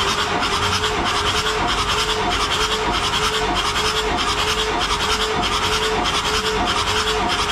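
Six-cylinder marine diesel cranking over on its starter motor for a compression test on cylinder two, with a regular beat about twice a second.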